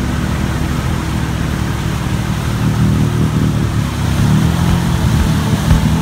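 Quad (ATV) engine running hard under throttle as the machine churns through deep mud and water, with the sound getting a little louder from about four seconds in.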